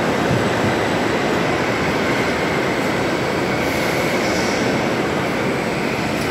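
Steady rumbling of a children's motorcycle carousel ride turning, its platform and wheels running at an even pace.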